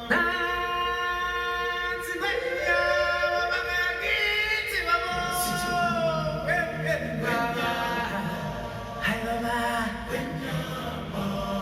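Music played back through IK iLoud Micro Monitor speakers: voices sing long held, wordless notes, choir-like, gliding from one pitch to the next. The music comes in abruptly at the very start.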